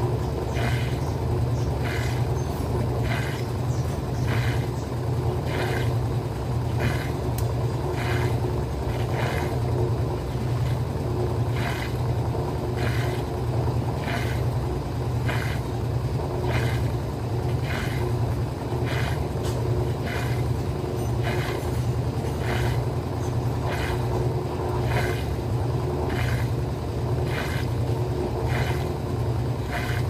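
Electrolux Top 8 (LE08) top-loading washing machine running with its cabinet off, most likely in its 700 RPM spin. It gives a steady low motor hum, with a light click or tick about once a second.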